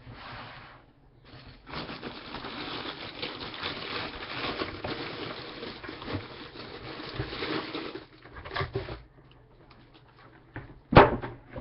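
Packaging crinkling and rustling for several seconds as a helmet is unwrapped, then a few light clicks and one sharp knock near the end.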